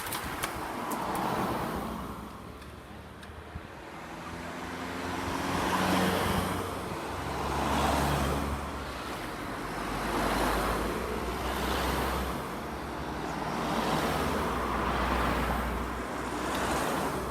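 Motor vehicle noise: a low engine hum under wind and road noise that swells and fades in waves every couple of seconds.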